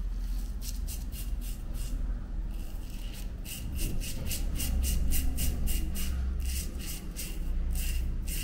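Rapid rasping scrapes of an all-aluminium safety razor cutting through lathered beard stubble, about three short strokes a second.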